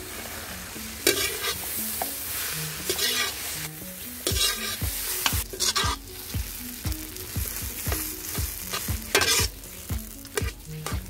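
Perforated steel spatula stirring and scraping mashed potato into a frying onion and vegetable masala in an iron kadai, with a steady sizzle underneath. The loudest parts are the scrapes of the spatula on the pan, which come every second or two.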